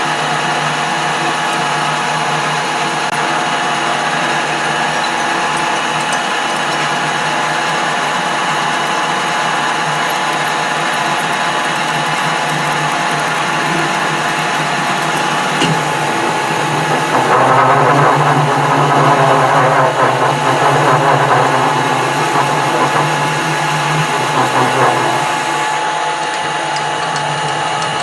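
Small metal-turning lathe running steadily with a whirring gear drive. About two-thirds of the way in it turns louder and rougher for several seconds, then settles back.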